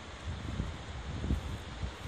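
Wind buffeting the microphone in irregular low gusts over a steady rushing hiss from the flood-swollen, muddy river.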